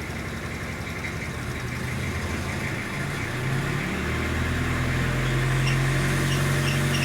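Toyota Hilux engine idling, its note stepping up higher and louder about four seconds in, with short, repeated chirps from the alternator belt about twice a second, clearest in the second half. The belt is close to squealing, a sign that it is due for maintenance.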